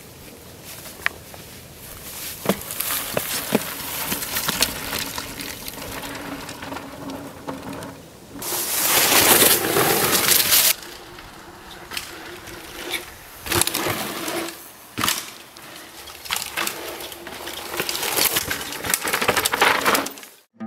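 Pivot Mach 5.7 Carbon mountain bike ridden on a leaf-covered dirt trail: tyres rolling and crunching over the ground, with scattered sharp clicks and rattles. About eight seconds in comes a loud hiss lasting a couple of seconds as the tyres slide through dry leaves in a corner, followed by further shorter surges.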